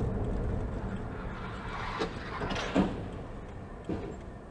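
Car interior road noise recorded by a dashcam while driving: a steady low rumble of engine and tyres, with a few short knocks, the loudest near three seconds in.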